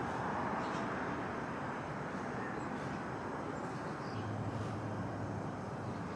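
Steady outdoor background noise, with a faint low hum joining about four seconds in.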